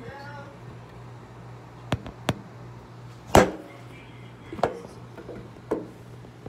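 Sharp knocks and clatters of things set down and bumped on a kitchen countertop, about five in a few seconds, the loudest about halfway through, over a steady low hum.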